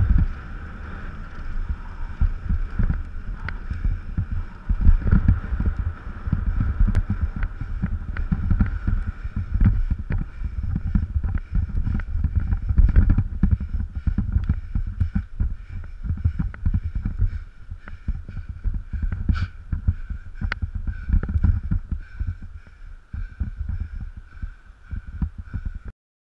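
Wind buffeting the microphone of a handlebar-mounted action camera on a moving bicycle: an uneven low rumble that rises and falls constantly, with a few sharp clicks.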